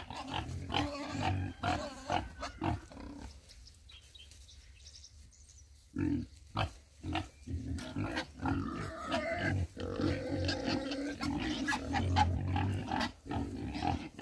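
Domestic pigs grunting repeatedly, with a quieter lull about four to six seconds in before the grunting picks up again.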